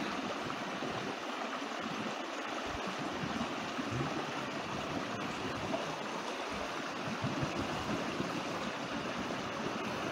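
Shallow stony creek babbling steadily as it runs over a low step of rocks.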